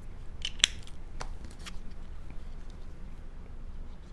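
A few small, sharp clicks and taps of craft tools and cardstock being handled, the loudest about half a second in, then only a faint steady room hum.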